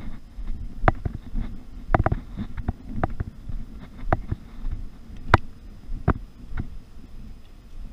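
Walking on stone paving, heard through a body-worn action camera's microphone: a steady low rumble of wind and movement, with a sharp knock about once a second in step with the stride, one louder knock a little past halfway.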